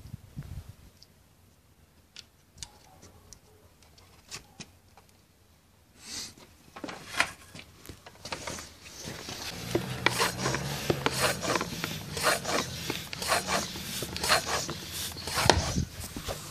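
Floor pump being worked by hand to charge a homemade air dart gun, pressurising it to almost 8 bar. After a few faint clicks, repeated rasping pump strokes start about six seconds in and grow louder from about ten seconds.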